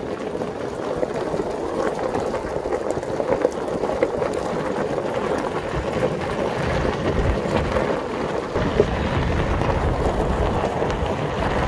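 Golf buggy wheel rolling fast over a gravel path: a loud, steady rush of tyre noise.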